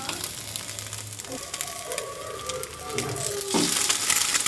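Egg frying in oil in a pan, sizzling and crackling steadily. About three and a half seconds in, a steel spatula scrapes under the egg to lift it.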